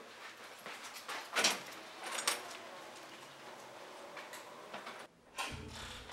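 A few short knocks and clatters in a room, the two loudest about a second and a half and two seconds in, over faint background noise; music starts near the end.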